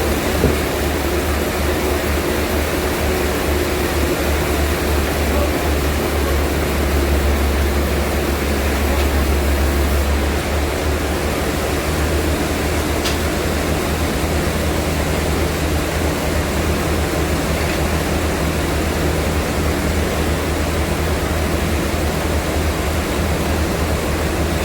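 Vintage sawmill machinery running: a steady, loud rushing noise over a deep, constant hum.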